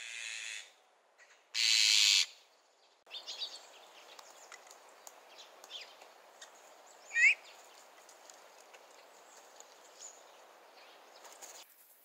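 Azure-winged magpies calling: two harsh, rasping calls in the first two seconds, then faint scattered chips and one sharp sweeping call about seven seconds in.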